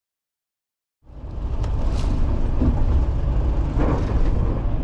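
Silent at first, then about a second in a steady low rumble fades in quickly, with a few faint clicks: a fishing boat's engine running.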